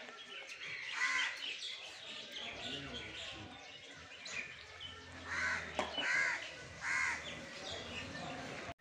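Crow cawing: one caw about a second in, then three caws in quick succession from about five seconds in, over faint background bird chirps.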